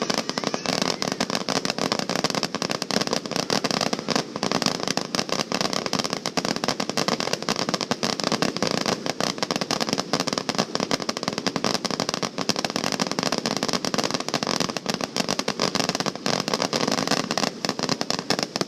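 Fireworks finale barrage: a dense, unbroken crackle and popping of many shells bursting at once, holding steady throughout.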